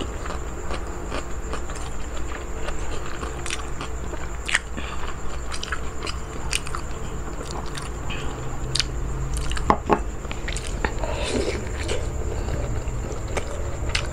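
Close-up mouth sounds of a person eating: chewing with wet smacks and small clicks scattered throughout, and a couple of louder knocks about ten seconds in.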